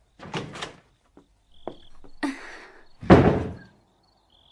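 A door shutting with a thud about three seconds in, after softer knocks and rustling in the first couple of seconds.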